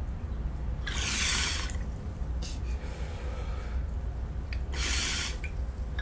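Sharp hissing breaths drawn at the mouthpiece of a bong: a long one about a second in and another shortly before the end, with a weaker one in between.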